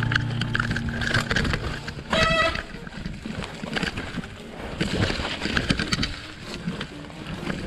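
Mountain bike riding fast over a muddy, leaf-strewn trail: tyres splashing and squelching through mud and puddles with the bike rattling over the ground. A brief squeal sounds about two seconds in.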